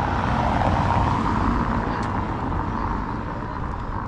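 A motor vehicle passing along a cobbled street, engine and tyre noise loudest about a second in, then slowly fading.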